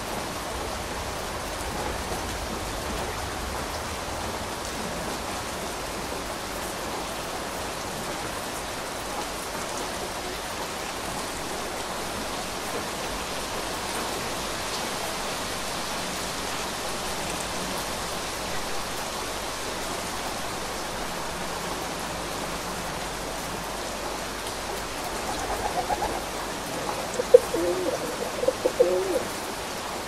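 Steady rainfall, an even hiss. Near the end a bird calls several times in short bursts, louder than the rain.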